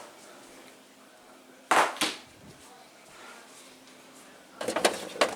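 Items being handled in a refrigerator: one sharp knock a little under two seconds in, then a quick run of clattering knocks near the end.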